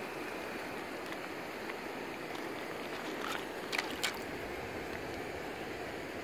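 Shallow creek water running steadily over gravel, with a few short splashes a little past halfway as a hand reaches into the water and lifts out a rock.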